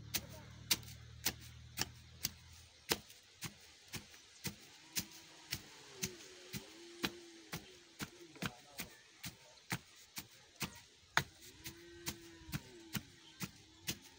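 Wooden pestle pounding grain in a small metal pot, a steady thud about twice a second. Low background music fades out about three seconds in.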